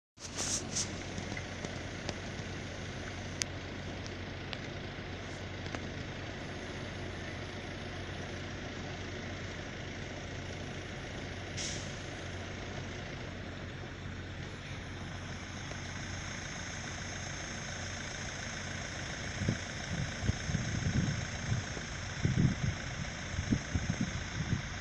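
A diesel engine idling steadily with a low hum. Irregular low bumps hit the microphone in the last few seconds.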